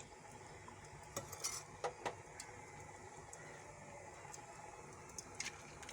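Faint clinks and knocks of a utensil against a hot cooking pan on the stove: a cluster of them in the first half and one more near the end, over a low steady hum.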